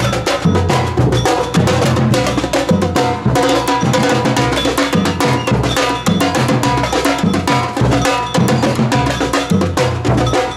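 A samba percussion band plays a fast, steady batucada rhythm on drums with a bright bell part, and a saxophone line runs over the beat.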